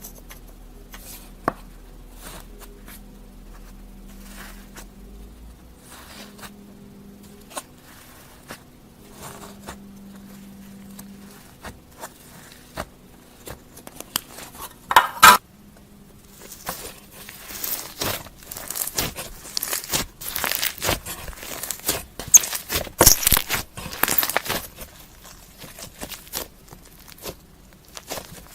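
Slime being squeezed and stretched by hand, making sticky clicks and crackling pops. They are sparse at first and grow dense and louder about halfway through, over a faint low hum.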